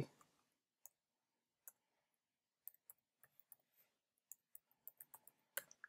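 Faint, irregular clicks of computer keyboard keys as a short command is typed slowly, about a dozen keystrokes that come closer together in the second half.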